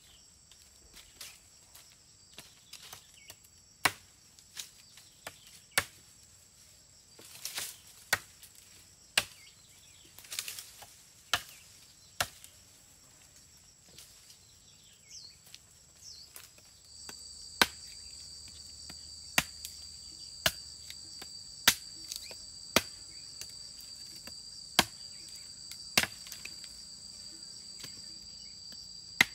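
Single blows of a large blade chopping into green saplings and wood, sharp strikes a second or two apart, with brief leafy rustling about a third of the way in. From a little past halfway, a steady high insect drone runs under the chopping.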